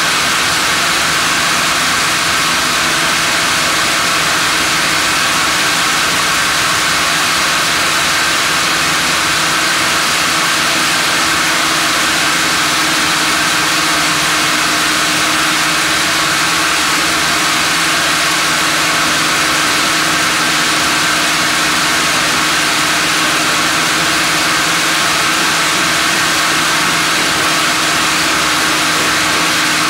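Sawmill machinery running steadily, a loud continuous mechanical hum with a strong hiss that stays even throughout.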